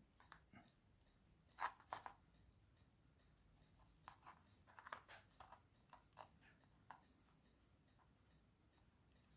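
Faint scratching and light clicks of small hand work on an electronics clock board: a couple about two seconds in and a cluster in the middle.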